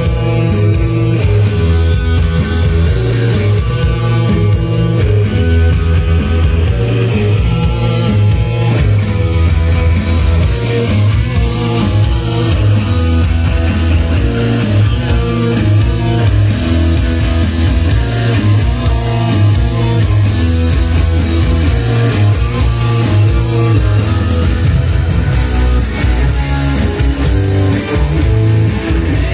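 Rock music with guitar and a strong bass line, played steadily loud through JBL 4312 three-way monitor speakers driven by a Sony TA-3650 integrated amplifier.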